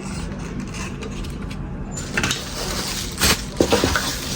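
Handling noise from unpacking Zippo lighters: rustling with several sharp clicks and knocks, the loudest about three seconds in.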